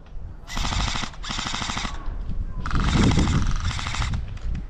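Airsoft rifle firing on full auto in three bursts of rapid clicks, the last one the longest.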